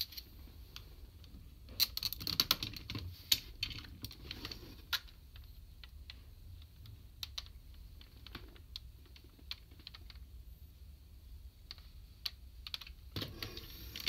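Hard plastic parts of a DX Kerberios sentai robot toy clicking and knocking together as it is handled and a chest armour piece is fitted. There is a dense run of quick clicks about two seconds in, scattered single clicks after it, and another run near the end.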